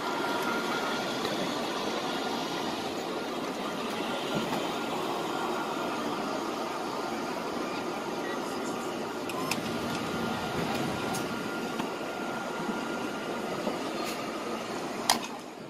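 Steady outdoor din, a noisy wash of distant traffic and crowd with no clear single source, broken by a few sharp clicks, the clearest near the end.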